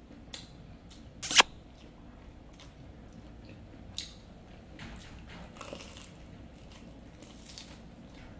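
Eating sounds: the crisp breadcrumb crust of a fried donut crackling as it is torn open and bitten, with soft chewing. One sharp crunch stands out about a second in, then fainter crackles and rustles.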